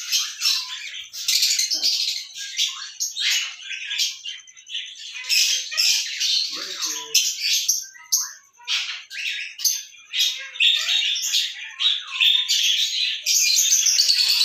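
Birds calling in quick, overlapping high-pitched chirps and squawks, denser and more continuous near the end.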